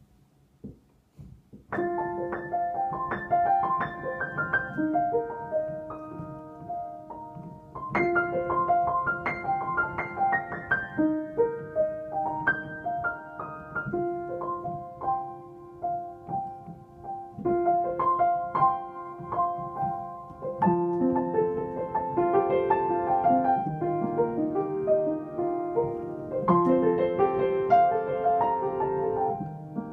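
Upright piano played by hand: a slow melody over held chords, starting about two seconds in and going on in phrases, with fuller lower notes in the second half.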